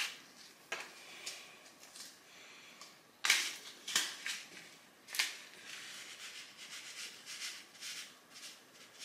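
Paper seed packet being handled and opened, crinkling and rustling, with a few sharp crackles and a stretch of soft rustle as the tiny onion seeds are shaken out into a hand.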